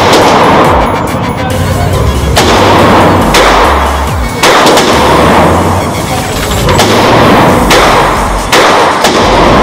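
FN SCAR 16S rifle firing single 5.56 mm shots, roughly one to two seconds apart, over background music.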